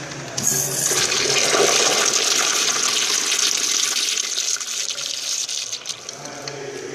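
Kohler Dexter wall-hung urinal flushing: a sudden rush of water starts about half a second in, is strongest for the next few seconds, then tapers off near the end.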